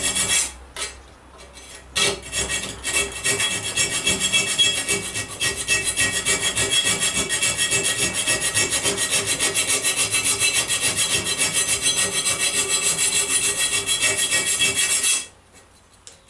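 Flat hand file rasping in quick, even back-and-forth strokes along the edge of a chiselled slot in steel plate, taking down the burr so a rivet can pass. The strokes pause briefly about a second in and stop near the end.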